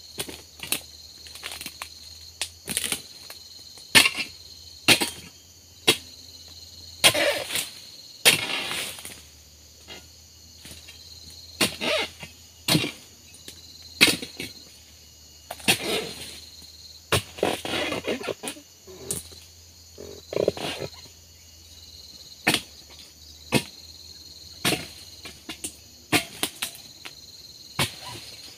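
Repeated sharp strikes of a long-handled oil palm harvesting tool chopping into frond bases and bunch stalks, roughly one a second, with a few longer rustling crashes as cut fronds come down. Insects trill steadily behind.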